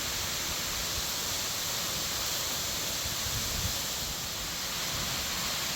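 Steady rush of moving water, an even hiss with no breaks.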